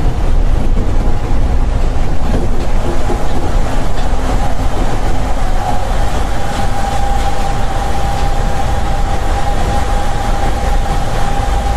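Seibu 8500 series rubber-tyred AGT car running on its concrete guideway, heard from inside the cab: a steady low rumble with a steady high whine that comes up about halfway through and holds.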